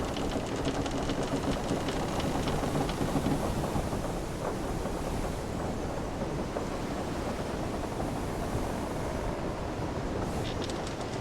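Wooden sailing-ship ambience: a steady wash of waves and wind under creaking ship timbers, with runs of small wooden ticks in the first few seconds and again near the end.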